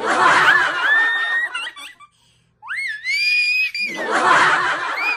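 A young girl laughing loudly with high-pitched squeals: breathy laughter with a rising shriek, a short pause, then another long squeal running into more laughter.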